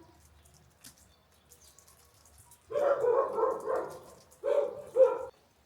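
A dog barking: a quick run of barks about three seconds in, then two more barks shortly before the end.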